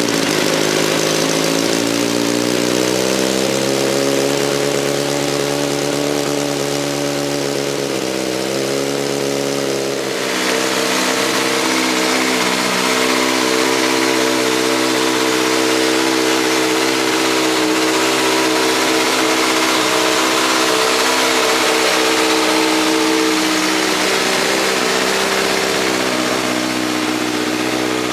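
Kawasaki 636 motorcycle's inline-four engine idling just after a cold start, warming up. The idle climbs over the first few seconds, dips and wavers briefly about eight to ten seconds in, then holds steady.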